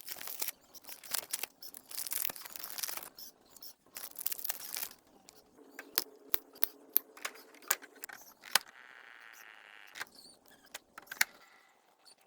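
Packaging being handled: a few seconds of crinkling and rustling, then a run of sharp clicks and knocks, with a short steady hum partway through.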